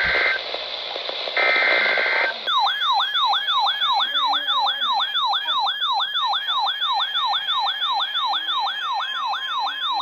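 The end of a NOAA Weather Radio SAME data header, heard as two short bursts of buzzy data tones over radio hiss. About two and a half seconds in, an electronic siren-like alert tone starts: a falling sweep that repeats a little under three times a second. It announces an incoming severe thunderstorm warning.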